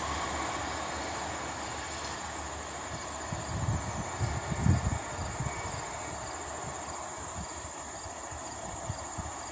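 Norfolk Southern train's rumble and rushing wheel noise slowly fading as it moves away, over a steady high insect trill. A few low thumps come about halfway through.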